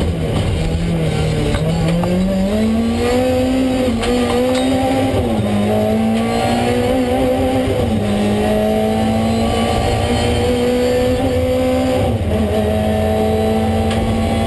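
BMW 318is E36 rally car's four-cylinder engine pulling hard, heard inside the cabin: the revs climb, then drop sharply at each upshift, about five, eight and twelve seconds in, with road and tyre noise underneath.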